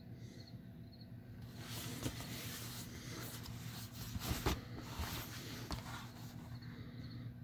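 Rustling and crinkling of packaging being handled, with several sharp clicks and knocks, loudest in the middle, over a steady low hum. Faint high chirps repeat about twice a second in the first second or so.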